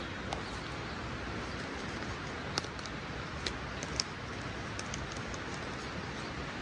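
A few light clicks and small handling noises from a handheld camera being fiddled with, three sharper clicks a little past the middle, over a steady background hiss.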